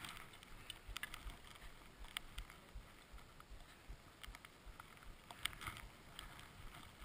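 Skis shuffling slowly through deep powder snow, faint, with scattered small clicks and taps of skis and poles.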